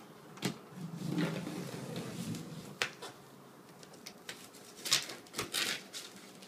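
Sharp clicks and knocks of packaging being handled during an unboxing, with a low wavering sound about a second in.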